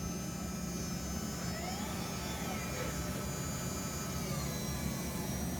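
Steady whir and hum of a workshop dust collection system running, with faint tones that slide down in pitch near the end.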